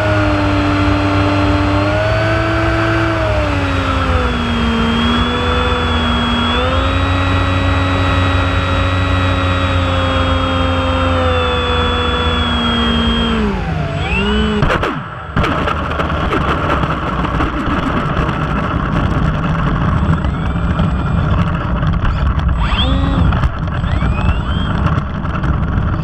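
Icon A5 model airplane's motor and propeller heard from the plane itself: a steady pitched drone that steps with the throttle, then winds down about fourteen seconds in as the plane lands. After touchdown comes a rough rumble of the plane rolling along asphalt, with a few brief chirps near the end.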